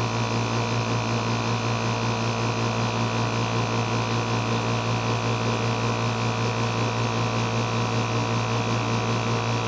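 VEVOR portable air compressor's electric motor and pump running with a steady hum, rather quiet for an air compressor, as it builds tank pressure between 80 psi and its 115 psi cut-out.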